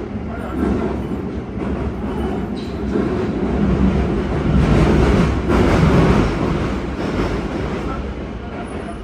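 Yokohama Municipal Subway 4000 series train running through a tunnel, heard from inside the car: a steady rumble of wheels on rails. It grows loudest in the middle and eases off near the end.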